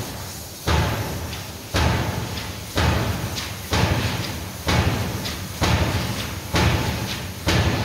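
Large die-forging hammer striking hot steel in its die, eight heavy blows in steady succession about once a second, each dying away before the next.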